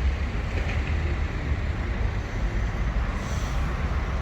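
Steady city traffic noise with a heavy low rumble.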